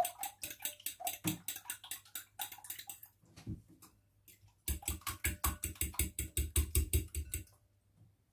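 Two eggs being beaten in a bowl: the utensil taps the bowl in quick, even strokes, about seven or eight a second. A first run is followed by a short pause and then a second, stronger run.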